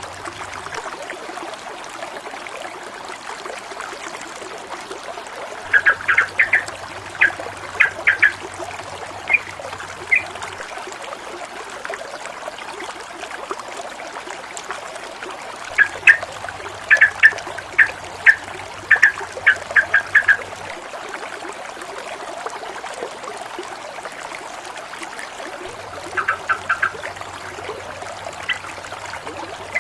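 Water flowing and babbling steadily. Over it come three bursts of quick, repeated bird calls, about ten seconds apart.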